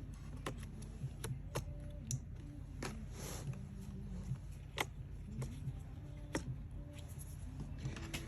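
Scattered light clicks and taps, roughly one a second, with a brief rustle about three seconds in, from small laptop parts and tools being handled on a workbench.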